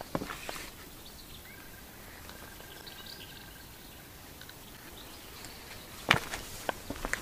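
Footsteps stop shortly after the start and resume about six seconds in. In the quiet pause between, a faint thin chirping call, from a bird or insect, can be heard over the outdoor background.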